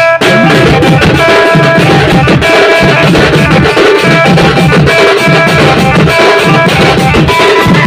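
A band-party drum ensemble playing a fast Koraputia demsa dance rhythm: rope-tuned dhol barrel drums and stick-beaten snare-type drums, loud and dense. A melody of short held notes repeats above the drums.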